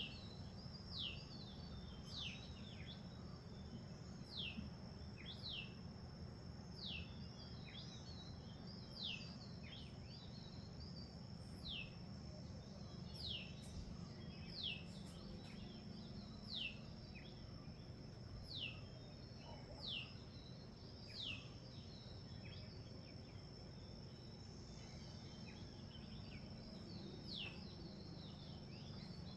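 A bird repeating a short high whistle that falls in pitch, roughly once every second or so, over a steady high-pitched insect drone and a low background rumble.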